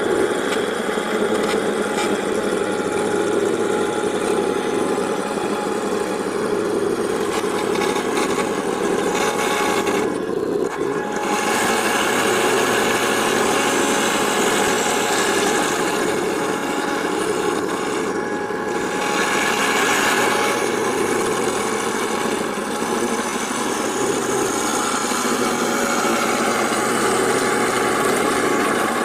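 1/16 MATO all-metal Tiger I RC tank running, its sound unit playing a steady engine noise over its drive and metal tracks. The sound runs on continuously, with the high end thinning briefly twice, about a third and about two thirds of the way through.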